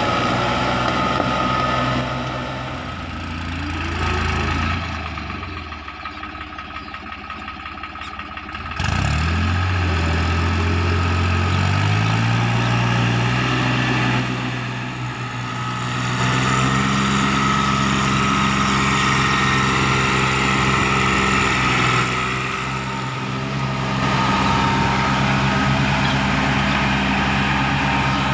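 Diesel tractor engine running under ploughing load, its revs changing. The engine note falls away about five seconds in and comes back suddenly near nine seconds, then climbs in pitch over the next few seconds. There are shorter dips later on.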